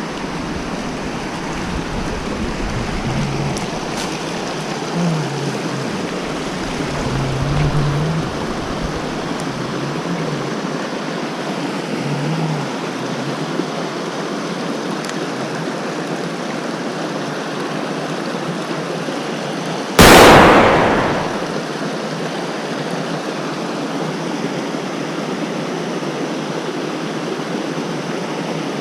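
Steady rushing of a flowing creek. About two-thirds of the way through comes one sudden, very loud thump that dies away over a second or so.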